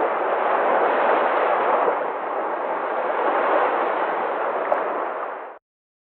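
Small ocean waves washing onto a sandy beach: a steady hiss of surf that swells and eases, then cuts off suddenly near the end.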